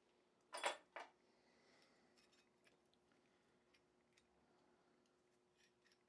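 Two sharp metal clinks of steel latch parts and a bolt knocking together, about half a second apart, followed by faint small clicks and rubs of the parts being handled.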